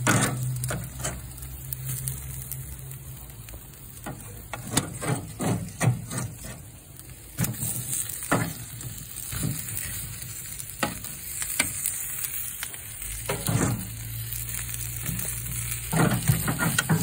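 Smoked oxtails sizzling on a smoker's wire grate, with tongs clicking and scraping irregularly against the grate and pan as the pieces are moved.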